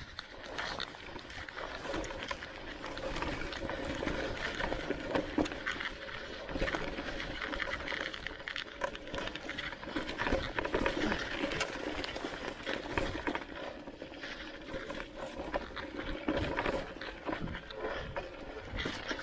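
Canyon Spectral:ON e-mountain bike's tyres rolling over a trail of dry fallen leaves: a continuous crackling rustle full of small clicks, with knocks and rattles from the bike over bumps and a faint steady hum underneath.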